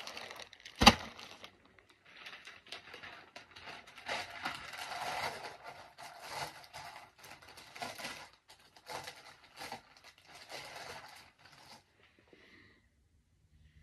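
Clear plastic garment bags and a plastic mailer bag crinkling and rustling in irregular bursts as folded denim is lifted and stacked, with one sharp knock about a second in.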